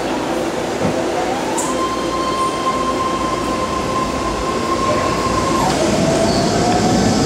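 BART train's propulsion whine as the train moves slowly along the platform. A single tone rises and holds, drops suddenly about three-quarters through, then starts climbing again over a steady rumble.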